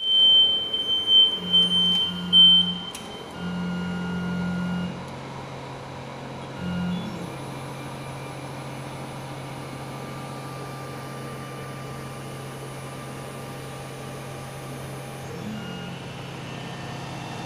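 WDS-720 BGA rework station running: a high electronic beep sounds in short pieces over the first three seconds while a motor hums in bursts as the head and board tray move. After that a steady low hum continues, with a faint high whine.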